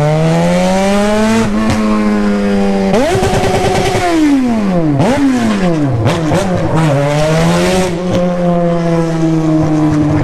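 Yamaha FZ6 motorcycle's inline-four engine under throttle. Its pitch climbs for the first second and a half, holds high, falls away steeply about four seconds in, rises and falls again, and settles to a steady lower note for the last couple of seconds.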